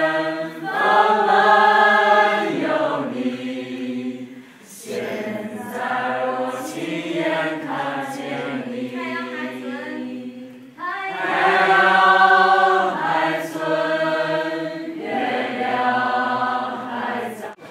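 A group of people singing together, holding long sung phrases with short breaks about four and eleven seconds in.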